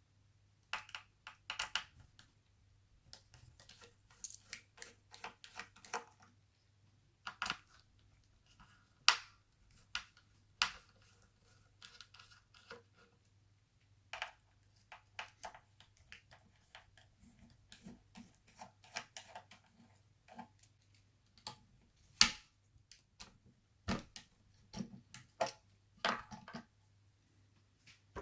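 A second hard drive being worked out of an Alienware M17x R2 laptop by hand: irregular clicks, knocks and short scrapes of metal and plastic parts. The sharpest knocks come about nine and twenty-two seconds in.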